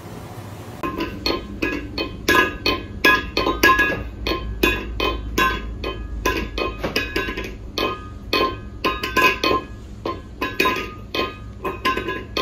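Background music: a quick tune of sharp, plucked-sounding notes, starting about a second in.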